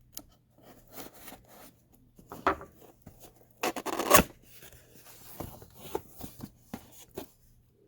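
Small cardboard box being handled and pried open: scattered clicks and rustling scrapes, with the loudest scraping burst about four seconds in.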